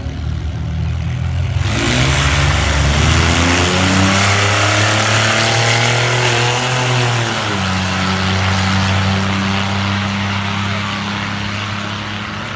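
Drag cars launching and running down the strip at full throttle. Loud engine and exhaust noise comes in sharply about two seconds in, and the engine pitch climbs for several seconds, then drops at a gear change about seven seconds in and holds steady.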